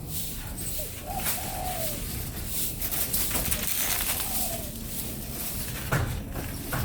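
Pigeons cooing: short, low, arching coos, one about a second in and another about four seconds in, over a steady background hiss.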